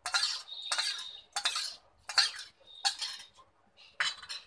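A steel spoon stirring and scraping around a small steel bowl of citric acid dissolved in water, scraping and clinking against the sides in about six strokes, some leaving a short metallic ring.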